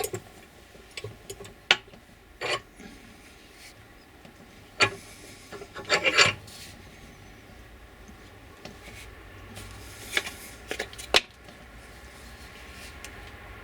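Handling and twisting the rust-seized steel body of an old grease gun: scattered sharp metal clicks and short scrapes with quiet gaps between, as the stuck part refuses to turn.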